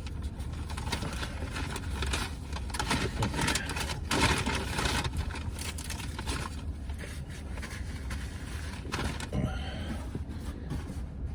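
Close-up eating and food-handling noises: irregular rustling, scraping and small clicks over a low steady rumble.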